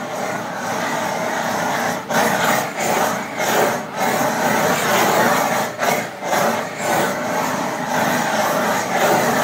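Handheld gas blowtorch flame hissing as it is played over slices of cheese on grilled beef cubes, melting them, the noise swelling and dipping as the flame moves.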